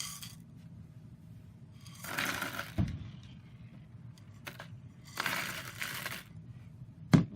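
Rustling of candy packaging in two short bursts while candies are handled, with a click after the first burst and two sharp knocks near the end.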